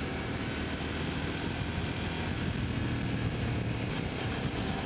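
CFMOTO IBEX 800's 799 cc parallel-twin engine running at a steady road speed in third gear, with wind rushing over the on-bike camera's microphone.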